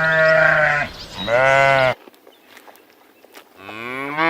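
Two short bleats, each under a second, about half a second apart. Near the end a different animal's long call starts, rising in pitch.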